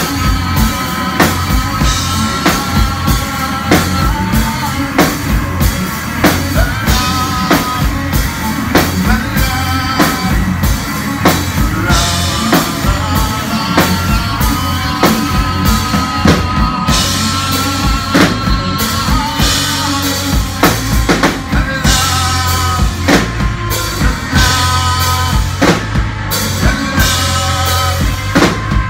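Live rock band playing loud: a steady drum-kit beat with electric guitar and electric bass, and a man singing into a handheld microphone.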